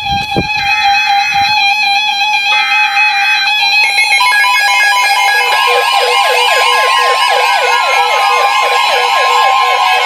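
NOAA Weather Radio SAME header: three short buzzing data bursts about a second apart over a steady tone. Then several weather alert radios go off at once with overlapping steady alarm tones and a fast warbling siren-like alarm, the sign of a new warning being received.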